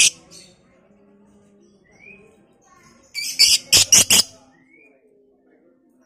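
Masked lovebird calling: a sharp call at the start, two short rising chirps, and, about three seconds in, roughly a second of loud, rapid, harsh chattering calls.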